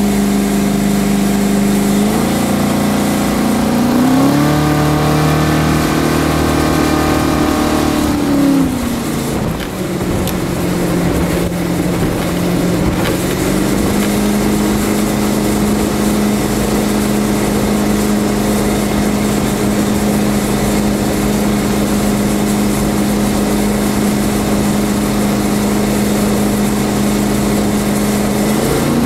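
Oldsmobile 455 big-block V8 of a jet boat running under way. Its pitch rises about two seconds in and holds, falls back about eight seconds in, then settles into a steady cruise from about fourteen seconds before climbing again at the very end, with water rushing from the jet wake underneath.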